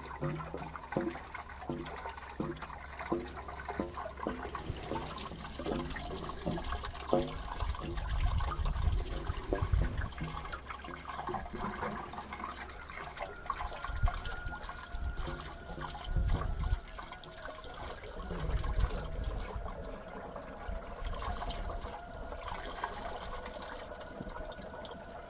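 Water running and splashing inside a Hayward Extended Cycle DE pool filter as a hose-fed filter wand flushes caked diatomaceous earth off the grids and the filter drains. A light regular tapping comes about twice a second for the first several seconds.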